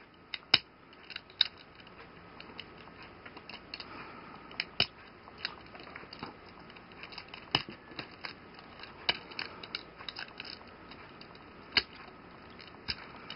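Plastic parts of a Takara Tomy Henkei Red Alert Transformers figure clicking and snapping as the hands move them while transforming it, a dozen or so irregular sharp clicks over a faint hiss.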